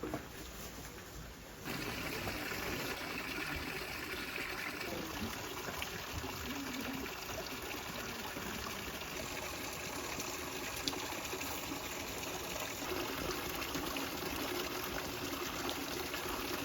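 Water running steadily, a stream-like rush that comes in suddenly about two seconds in and holds evenly.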